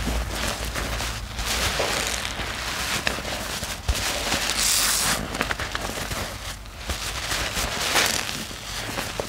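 A soaked foam sponge squeezed and kneaded by hand in a bowl of thick soapy lather: wet squelching and sloshing with many small pops of bursting suds, and a louder hissing squish about halfway through.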